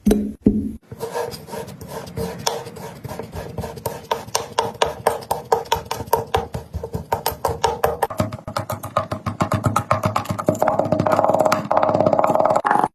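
Music: a rapid clicking beat that speeds up over a held tone, the pitch stepping higher in the last few seconds.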